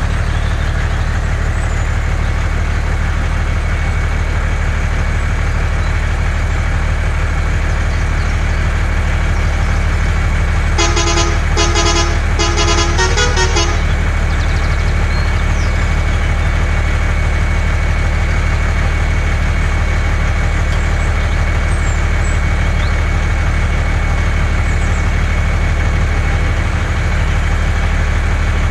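Steady low hum of a heavy truck engine, with a horn honking in a quick run of about four blasts around eleven to thirteen seconds in.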